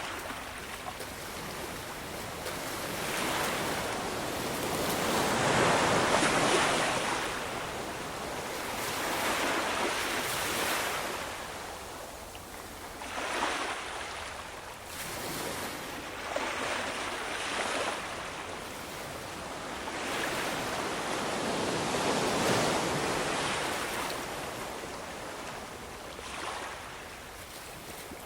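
Ocean waves rolling in and washing up, a steady rush that swells and fades over a few seconds each, with the biggest surges about six seconds in and again past twenty seconds.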